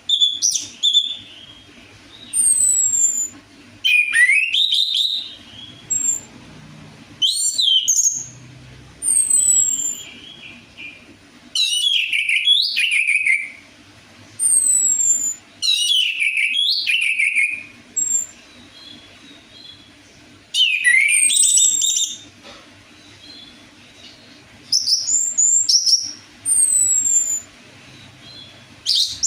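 Orange-headed thrush (anis merah) singing as a lure song: about a dozen short phrases a second or so long, spaced by brief pauses, mixing warbled notes with high, thin, falling whistles.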